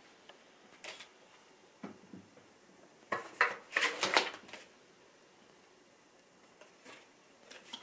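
A packet of card bookmarks being unwrapped and handled by hand: short rustles and clicks of card and packaging, with the loudest cluster about three to four and a half seconds in.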